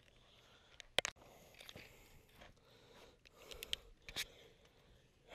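Handling noise from landing a largemouth bass with a net into a small boat: a few sharp knocks and clicks of gear against the boat, the strongest about a second in and a cluster near the end, with faint rustling in between.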